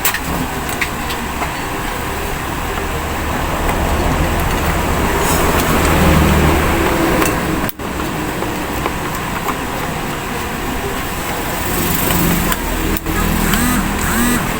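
Steady road traffic noise with a vehicle engine's low rumble, swelling loudest about six seconds in and broken by two brief dropouts.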